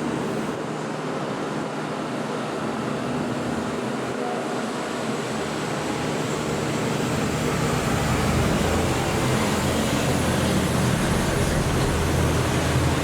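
Disney Skyliner gondola cabin riding along the cable, heard from inside: a steady rushing noise, with a low rumble that grows stronger in the second half.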